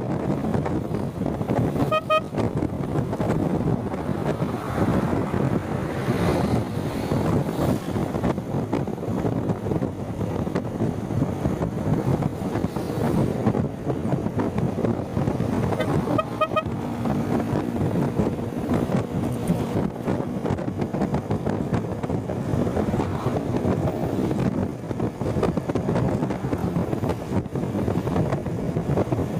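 Steady wind and road noise buffeting the microphone while riding, loud enough to drown out the rider's voice. A vehicle horn beeps briefly about two seconds in and again around the middle.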